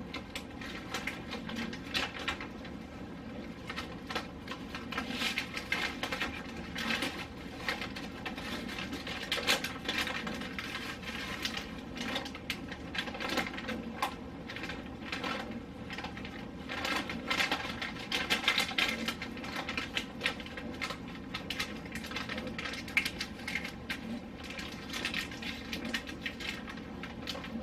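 Food containers and packages being moved about and set down on refrigerator shelves and drawers: irregular small clicks, knocks and rustles throughout, over a steady low hum.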